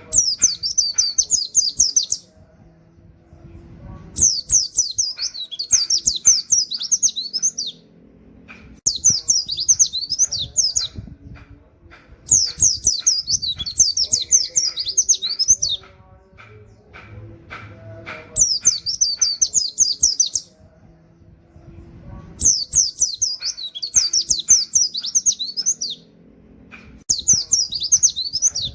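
White-eye (pleci) singing in rapid-fire bursts of high, fast 'wit wit' notes in a canary-like style, about six bursts of a few seconds each separated by short pauses. Faint clicks come in the gaps.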